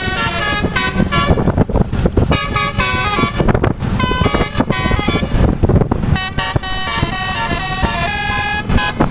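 Bus telolet horn, a multi-tone air horn, playing a quick melody of stepped horn notes with a few short breaks.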